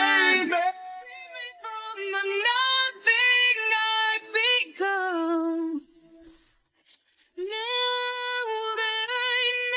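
A woman singing a melody with little or no accompaniment: a run of short sung notes, a brief pause about six seconds in, then one long held note near the end.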